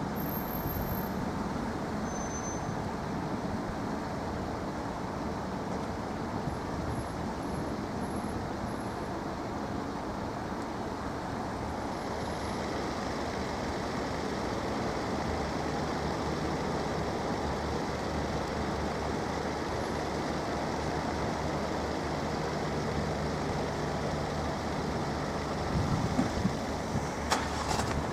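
Steady road-traffic noise at a level crossing, with vehicle engines running and a low, steady hum. A few sharp knocks come near the end.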